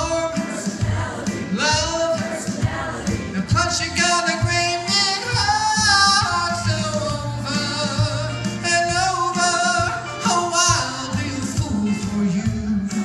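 A man singing an upbeat pop song into a handheld microphone, with long held and sliding vocal lines, over an accompanying music track.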